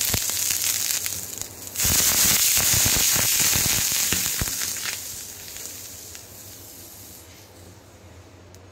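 Water sprinkled by hand onto a hot tawa sizzling and crackling, a sign the griddle is hot enough for dosa. A fresh sprinkle about two seconds in sets off a louder burst, which dies away over the last few seconds as the water boils off.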